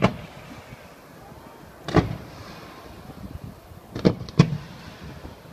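Fireworks exploding over the water in a series of sharp bangs: one at the start, one about two seconds in, and two in quick succession about four seconds in.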